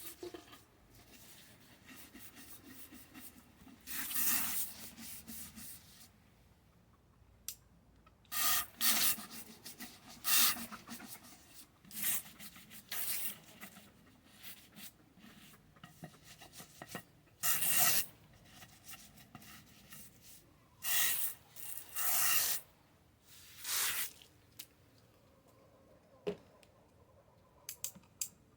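Irregular short bursts of scraping and rubbing, about a dozen, each under a second, with quieter handling noise between them.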